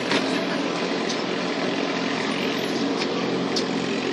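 Steady low engine hum with a few faint sharp smacks of a handball against the wall or a hand, one just after the start and two near the end.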